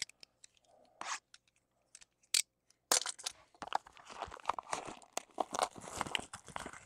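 Plastic shrink-wrap being torn and crumpled off a trading-card box: a few separate crinkles and taps at first, then dense crackling from about three seconds in.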